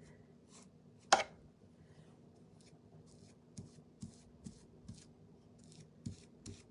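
A single sharp click about a second in, then a paintbrush stroking over wood in short, soft, even strokes about two a second.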